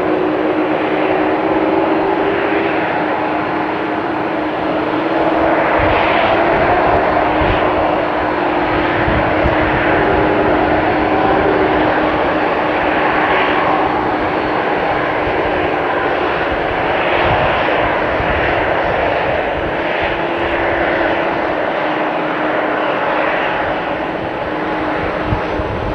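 Three-engine McDonnell Douglas MD-11F freighter's jet engines running, a loud, steady engine noise with a steady tone running through it.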